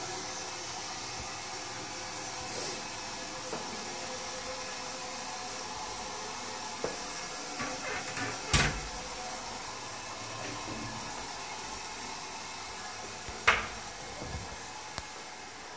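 Several knocks and clicks of a toilet lid and cubicle door being handled in a small tiled cubicle, over a steady hiss. The loudest knock comes about halfway through and another near the end.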